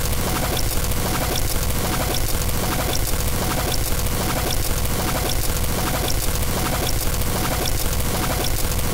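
Experimental electronic noise soundtrack: a dense, steady wash of noise with a held tone underneath and a looped pattern of short clicks repeating about twice a second.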